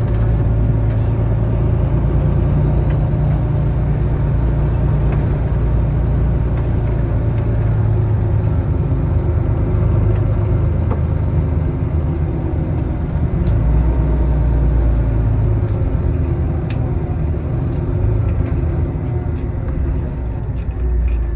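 City bus running through the streets, heard from inside the passenger cabin: a steady low engine and road rumble with occasional faint clicks and rattles.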